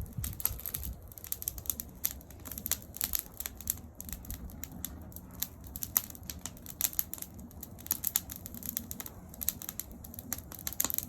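Wood fire crackling, with rapid irregular snaps and pops over a low rumble.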